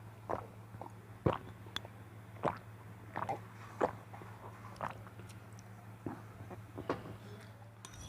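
Close-miked chewing of spicy cheese noodles: irregular wet mouth clicks and smacks, about one or two a second.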